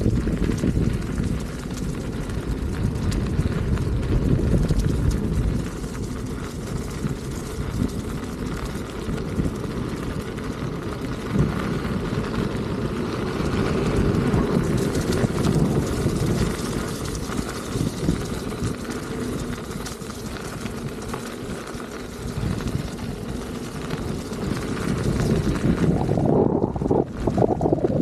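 Wind buffeting the microphone of a camera on a moving electric unicycle: a steady low rumble of rushing air that swells and eases a few times.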